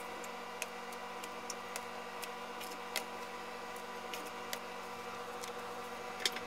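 A steady machine hum made of several held tones, with light clicks and ticks at irregular moments.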